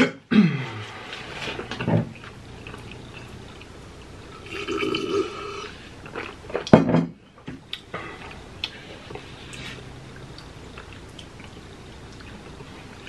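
Close-up eating and drinking sounds: wet chewing, slurping and swallowing of spoonfuls of chili and sips from a cup, with scattered small clicks and one sharp knock about seven seconds in.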